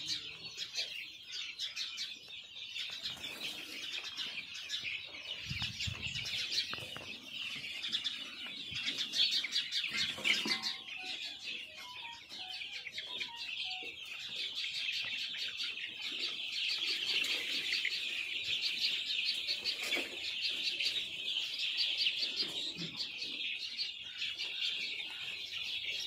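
A large flock of young chickens peeping and cheeping all at once, a dense, continuous chorus of high chirps.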